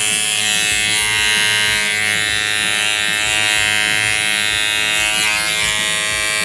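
Electric hair clipper running steadily, used over a comb to feather off beard hair without taking length.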